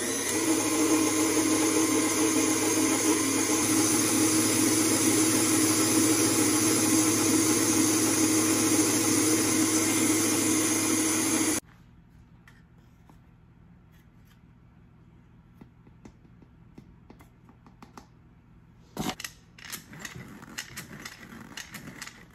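Electric stand mixer with a wire whisk attachment running fast, beating the liquid ingredients for a carrot cake in a stainless steel bowl: a loud, steady motor hum that gets louder just after the start and cuts off suddenly about twelve seconds in. After that come a few faint clicks, then near the end a knock and the scratchy clicking of a metal hand-crank flour sifter.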